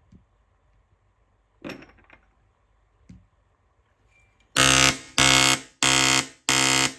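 Airsoft rifle's double-bell gearbox, driven by a Pulsar motor under a Gate Titan 2 trigger unit, cycling at a very high rate of fire: five short bursts of about half a second each, starting about four and a half seconds in, each a loud, fast buzz. A few light clicks come before the bursts.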